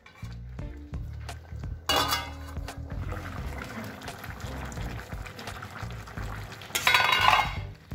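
Chicken curry bubbling in a steel pot, with metal clinks from the pot's lid and utensils. Louder clattery stretches come about two seconds in and again near the end.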